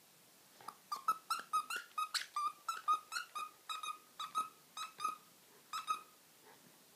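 The squeaker in a plush dog toy squeaking over and over as a dog chews it: about twenty short squeaks of the same pitch, several a second, starting under a second in and stopping about six seconds in.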